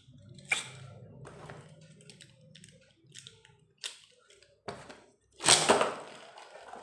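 Light plastic clicks as a ripcord is fed into a Beyblade launcher, then a sharp zip about five and a half seconds in as the ripcord is pulled to launch the Bloody Longinus top, which is left spinning with a faint whir on the cardboard stadium floor.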